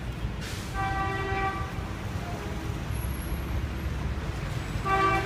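Vehicle horns honking in short steady-pitched toots, about a second in, faintly midway and again near the end, over a steady low rumble of street traffic.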